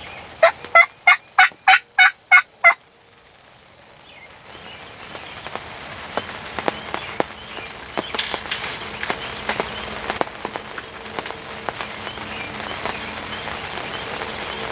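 A series of about eight loud turkey yelps, evenly spaced and about three a second, ending under three seconds in. Steady rain then patters on the blind, with sharp drip ticks and a growing hiss.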